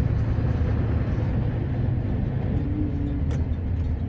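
Scania R560's V8 diesel engine running steadily, a low even rumble, with a faint click about three seconds in.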